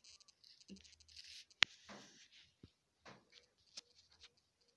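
Faint rustling and scraping of hands handling electrical wires, with one sharp click about a second and a half in.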